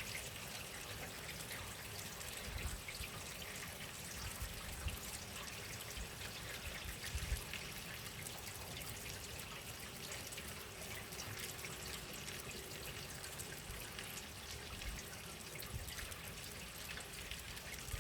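Rain falling steadily, a constant hiss with many small drops pattering and dripping, and a few soft low thumps.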